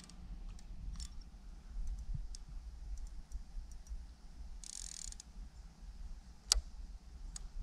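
Fishing reel's clicker giving sparse, irregular clicks as a fish slowly takes line, with a sharper click near the end. A low wind rumble and a brief hiss about halfway lie underneath.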